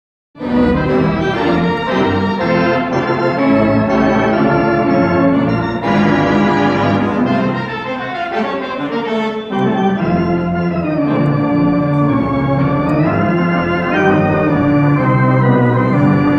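Wurlitzer theatre pipe organ playing full sustained chords, the notes wavering with tremulant.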